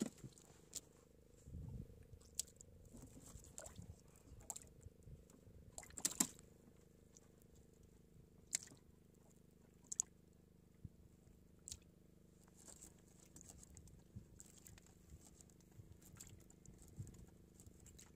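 A faint steady low hum with scattered short, sharp clicks and knocks; the loudest knock comes about six seconds in.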